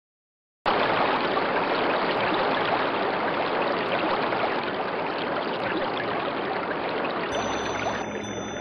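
A dense rushing noise, like running water or radio static, cuts in abruptly about a second in and slowly fades. Faint steady high tones and a low hum join it near the end.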